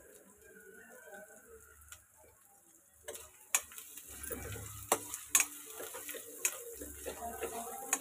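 Onions frying and sizzling in oil in a metal karahi, stirred with a metal spoon. From about three seconds in the spoon clicks and scrapes against the pan several times.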